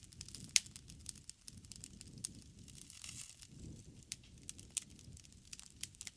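Wood campfire crackling, with irregular sharp pops over a soft low rumble of the flames; the loudest pops come about half a second and two seconds in.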